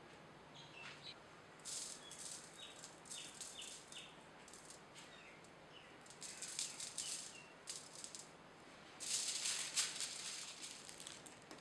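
Salt and black pepper shaken from shakers onto a garlic bulb on aluminium foil, in three short bouts of rattling, with granules pattering on the foil.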